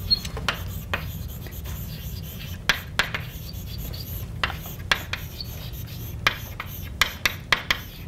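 Chalk writing on a blackboard: irregular sharp taps and short scratches as each letter is struck and drawn, several in quick succession near the end, over a steady low room hum.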